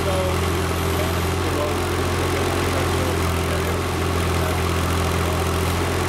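Avant 528 compact loader's engine running steadily at an even speed while it powers the remote-controlled backhoe attachment.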